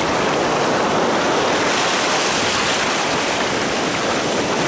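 Black Sea surf breaking and washing up a sandy beach in a steady rush of waves.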